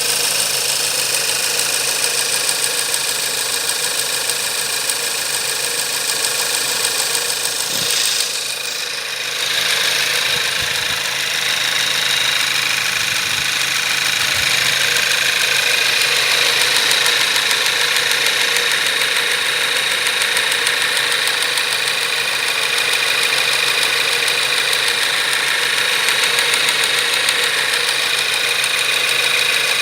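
Turbocharged 1.8 TSI four-cylinder petrol engine running cold with a strange metallic knock. The sound dips briefly about eight seconds in.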